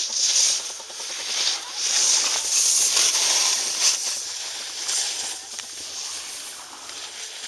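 Skis carving and scraping across packed snow: a hiss that swells and fades several times as the turns are made, loudest about two to four seconds in.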